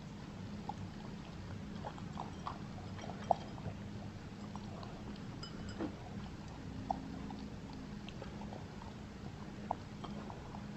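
Faint, scattered crunches and clicks of a Bernedoodle puppy moving about and mouthing in snow, over a low steady hum.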